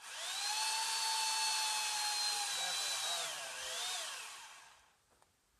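A power saw's motor starts and runs at high speed with a steady high whine. About three seconds in, the pitch dips and recovers as if under load, then it winds down and fades out.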